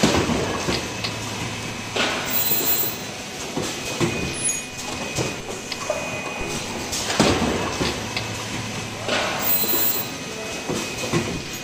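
Automatic cup mask machine with headstrap welding and exhalation-valve stations running through its cycle: a continuous mechanical hum with a thin steady whine, sharp clacks, and short hissing rushes in pairs about two seconds apart, the pattern repeating about every seven seconds.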